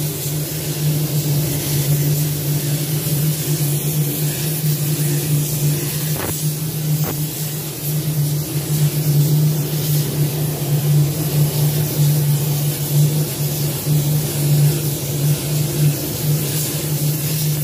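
Compressed-air spray gun hissing steadily as it lays a wet coat of clear coat on a car's body panels, over a steady low hum.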